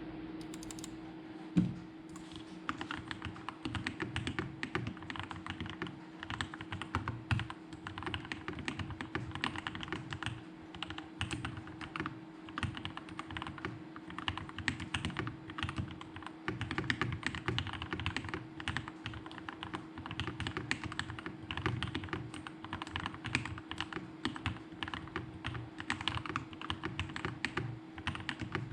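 Fast, continuous typing on a Keydous NJ80 mechanical keyboard with a brass plate, tape mod and lubed, filmed Gateron Pro Milky Yellow linear switches. The keystrokes begin after a single knock about a second and a half in.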